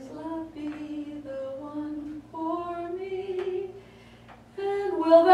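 A woman's voice singing unaccompanied, a slow line of held notes stepping up and down in pitch. After a short break about four seconds in, louder singing starts again.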